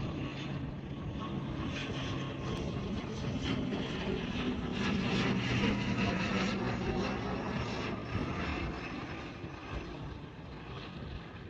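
Jet airliner passing on its landing approach, the engine noise swelling to a peak about halfway through and then fading away.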